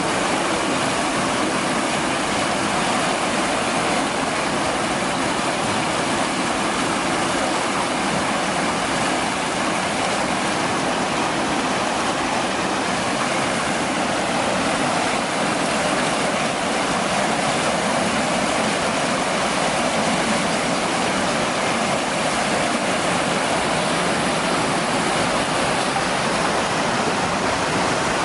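Wastewater rushing turbulently through a concrete open channel, a steady loud roar of churning water.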